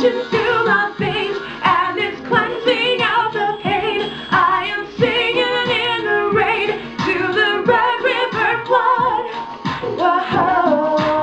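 A woman singing a slow original song with marked vibrato over a backing track with a steady beat, an added harmony voice layered with hers. Near the end she holds a long, steady note.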